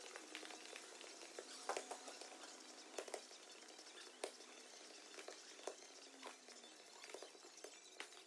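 Faint, scattered taps of a football being juggled against feet and knees, a touch roughly every second, some in quick pairs.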